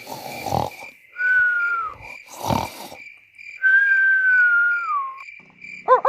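Cartoon-style snoring, twice: each time a rasping in-breath is followed by a thin whistling out-breath. The second whistle is longer and drops in pitch at its end.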